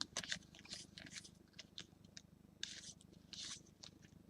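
Trading cards being handled and flipped through: faint flicks and clicks of card against card, with two longer soft swishes as cards slide past each other.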